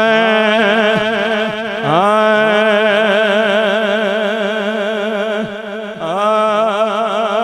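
A man sings Punjabi devotional verse for Muharram into a handheld microphone, in long drawn-out notes with a strong wavering vibrato. There are three held phrases, the middle one the longest, with a short breath between each.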